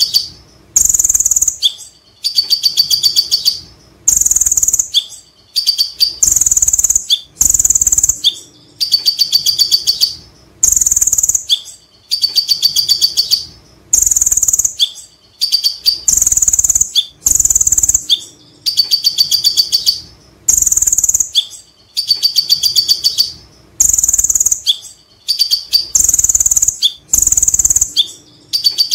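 Male van Hasselt's sunbird (kolibri ninja) singing: loud, high-pitched bursts of rapid chattering notes, the 'ngekek' call, each burst about a second long and repeated every second or two.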